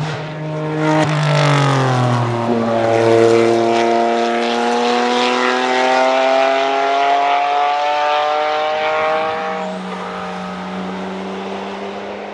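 Singer DLS Turbo's straight-piped, twin-turbo 3.8-litre flat-six driving by and pulling away under acceleration. Its pitch falls as it passes, then climbs steadily for several seconds. It drops at an upshift about nine and a half seconds in, and the sound fades as the car moves off.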